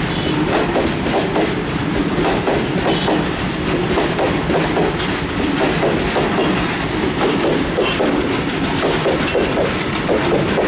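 Loaded freight train's covered goods wagons rolling past close by: a steady loud rumble with rapid clickety-clack of the wheels on the rails. A few brief, faint high squeaks come from the wheels.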